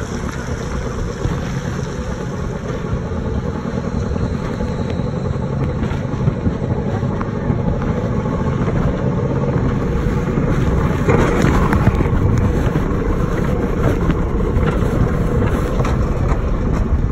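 Bobsled-style mountain coaster car running fast down its steel rail track: a steady rumbling noise of the ride in motion, growing a little louder about two-thirds of the way in.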